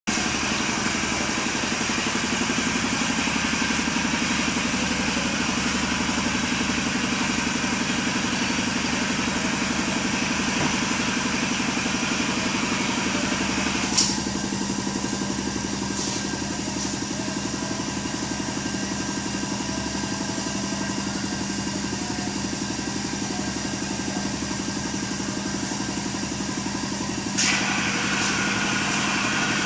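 An engine running steadily, a continuous drone. The sound jumps abruptly, with a click, about 14 seconds and again about 27 seconds in.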